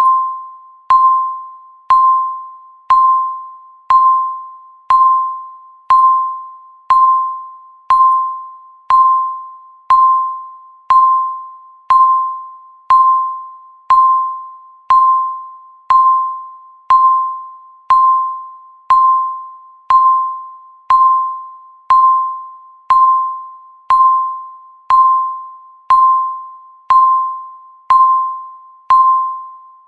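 Countdown timer beeping: a single electronic beep once a second, each starting sharply and fading out before the next.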